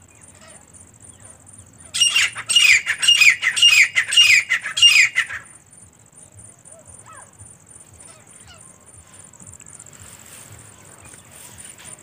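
Grey francolin calling: a loud, rapid series of ringing, repeated notes, about three a second, that starts about two seconds in and stops some three and a half seconds later. Faint chirps of other small birds sound before and after it.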